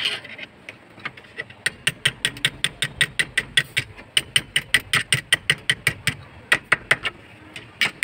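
Rapid, evenly spaced metal clicks, about five a second, from a hand tool worked on a truck's steering column at the ignition lock housing, with a short pause a little after halfway.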